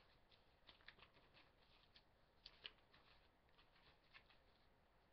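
Faint rustling and light clicks of binder pages being handled and flipped, with a few sharper ticks about a second in and again around the middle.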